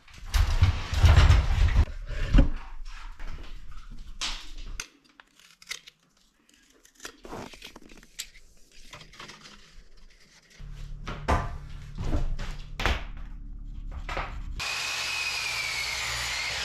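Clunks and knocks of a folding miter-saw stand and saw being set up, then near the end a power miter saw cutting through a wooden board, its blade whine dipping as it bites.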